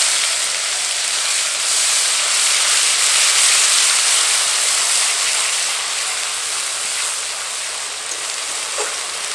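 Wet onion, ginger, garlic and tomato paste sizzling hard in hot mustard oil in a karahi as it is stirred, a loud steady hiss that eases slightly toward the end.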